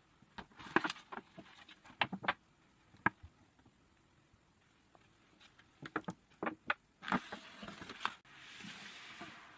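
iPhone retail box and packaging being handled: scattered taps and clicks, a short run of rustling handling, then about a second of rasping noise near the end.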